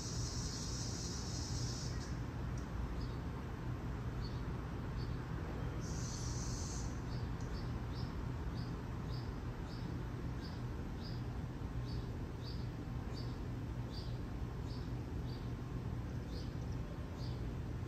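Insect-like chirping: short high chirps repeating about every half second over a steady low hum, with a high hiss for the first two seconds and again briefly about six seconds in.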